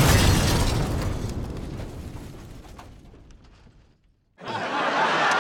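Explosion sound effect: a loud blast dying away over about four seconds, then cutting to silence.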